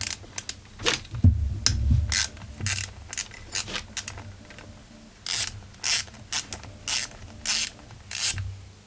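Ratchet tool worked back and forth on the screws holding a chainsaw's magneto: repeated clicking strokes, about two a second in the second half, with heavier handling knocks about a second in.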